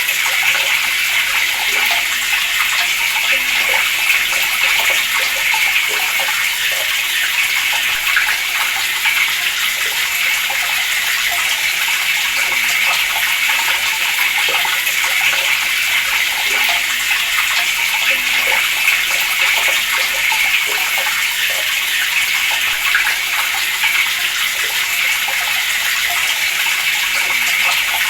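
Water running steadily from a tap, a continuous splashing hiss with no change in flow.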